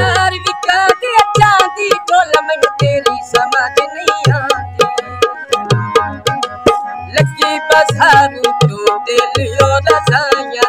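A Punjabi mahiye tappe folk song on tabla and harmonium: quick tabla strokes over deep bass-drum hits that bend in pitch, under held harmonium chords, with a man singing in the style.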